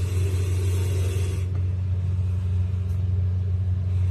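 A steady low hum, with a light hiss that fades out about a second and a half in.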